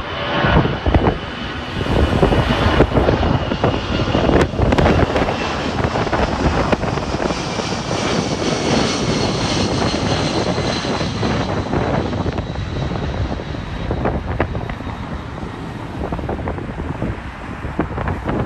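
Airliner's jet engines running as it passes, a steady rush with a faint whine that slowly falls in pitch. Wind buffets the microphone in gusts throughout.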